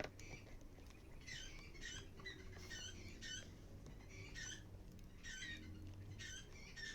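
Faint small-bird chirping: short, high chirps in small clusters, repeating about once a second over a low steady hum.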